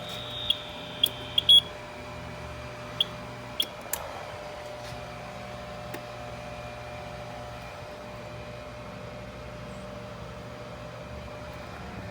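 Fire alarm horns falling silent as the test ends, with a handful of short, sharp chirps in the first four seconds. After that only a steady hum is left.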